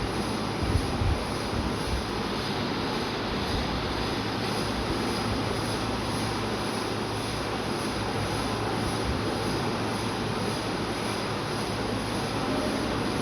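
Steady mechanical whirring and hiss with a faint high tone and an evenly pulsing upper hiss; a few low bumps about a second in.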